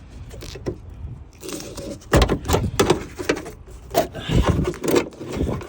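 Seat belt hardware and plastic interior trim being wrestled by hand: a quieter first second and a half, then a dense run of knocks, clicks and scraping.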